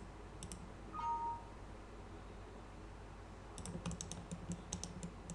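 Computer mouse clicking: a few clicks at first, then a quick run of clicks from about three and a half seconds in. About a second in, a brief two-note electronic chime steps down in pitch.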